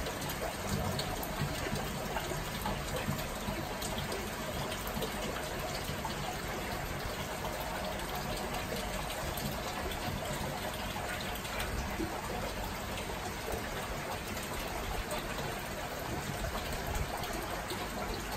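Aquarium water running and bubbling steadily: the circulation of a large cichlid tank.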